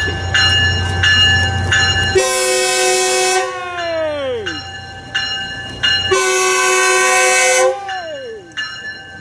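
Tri-Rail diesel locomotive departing: its bell rings about twice a second, then two long horn blasts, each sliding down in pitch as it dies away, with the bell ringing on between them. Two long blasts are the signal that the train is moving off.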